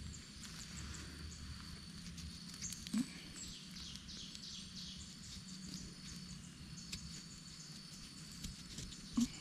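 Rural outdoor ambience: a steady high-pitched insect drone with short bird chirps over it. Two brief soft knocks come about three seconds in and near the end.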